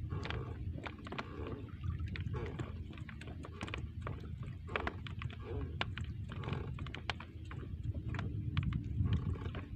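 Water lapping at a small wooden outrigger canoe on a calm sea: irregular small clicks and taps over a steady low rumble.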